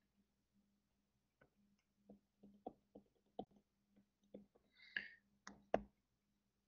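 Faint irregular clicks and taps of a stylus tip on a tablet screen while writing, a dozen or so small ticks. The sharpest come just before the end, with a short hissy sound at about 5 seconds.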